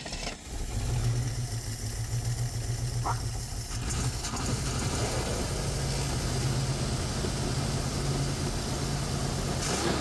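AMC Rambler Rogue engine picking up about a second in and then running steadily at idle, fed only by fuel poured into the carburetor float bowl.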